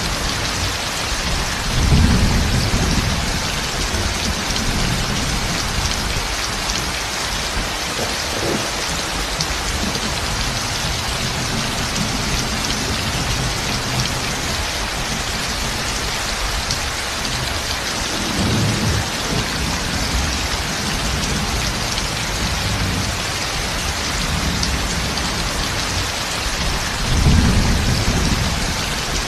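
Heavy rain beating steadily on a metal roof, with low thunder rumbling three times: about two seconds in, around the middle, and near the end.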